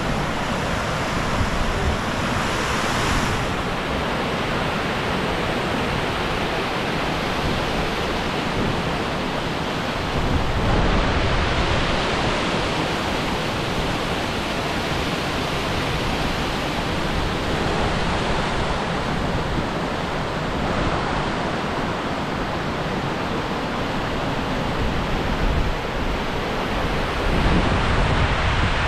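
The stream at the top of Wairere Falls rushing and cascading over rock slabs: a steady, full rush of water. Wind buffets the microphone now and then, most strongly about ten seconds in and near the end.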